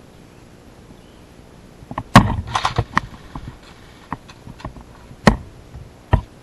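Airsoft gunfire: a handful of sharp single cracks spread irregularly, the loudest about two seconds in, followed by a quick flurry of lighter ones, then two more strong shots near the end.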